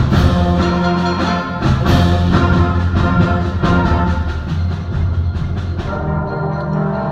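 High school symphonic band playing live: sustained low brass and chords driven by a steady beat of sharp percussion hits. About six seconds in, the percussion stops and the band drops to softer sustained chords.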